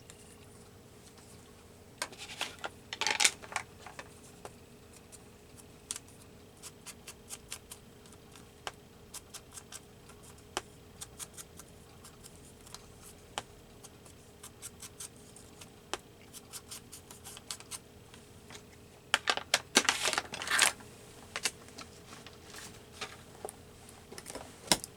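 Paper crafting at a table: scattered light taps and clicks of paper and small tools, with two louder bursts of scratching and rustling, one about two to three seconds in and one around twenty seconds in.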